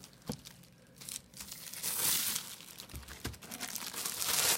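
Vacuum packaging being handled and unpacked: crinkling and rustling with a few light knocks, loudest about two seconds in and again near the end.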